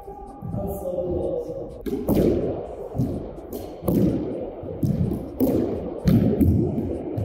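Squash ball being hit back and forth in a rally: sharp smacks of racquet on ball and ball off the court walls, about once a second from about two seconds in, each echoing in the enclosed court.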